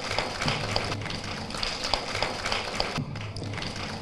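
End-card outro music: a looping bed of light tapping, clicking percussion over a steady low hum, with a short break about three seconds in.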